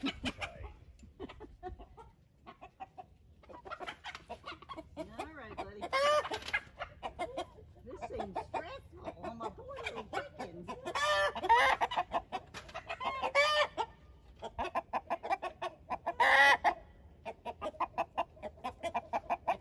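A flock of young chickens clucking, with several loud, pitched squawking calls standing out now and then.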